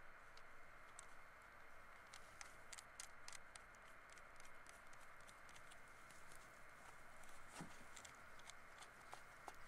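Faint scattered metallic clicks and taps of a wrench and cable lugs working on a battery terminal nut, thickest a couple of seconds in, over a steady faint hiss.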